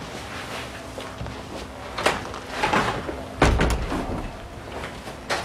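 A door being opened hard: a sharp knock about two seconds in, a heavier bang a little after three seconds, and another sharp click near the end.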